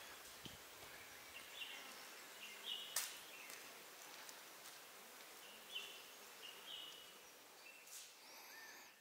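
Faint natural ambience with short, high bird chirps now and then and a few sharp clicks, the loudest about three seconds in.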